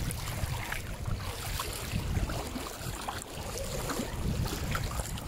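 River water sloshing and splashing while wading through a shallow river, with scattered small splashes and wind rumbling on the microphone.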